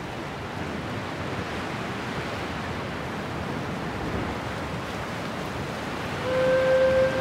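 Steady wash of gentle waves from a relaxation-app nature soundscape. About six seconds in, a soft held musical note enters over it.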